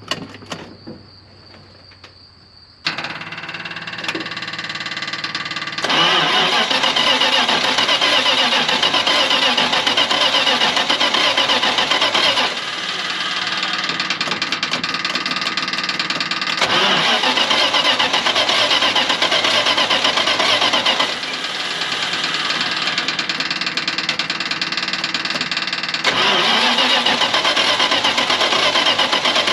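The 1980 Dodge truck's 360 V8 starts about three seconds in and runs with a loud clickety-clack, getting louder and quieter in turns. The clatter comes from an engine known to have a rod knock.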